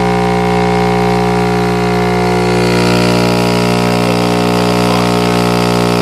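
Digital Designs DD9915 subwoofer wired straight into a wall socket, its cone driven hard by mains AC and giving a loud, steady buzzing hum. The sub is being deliberately overdriven to destruction.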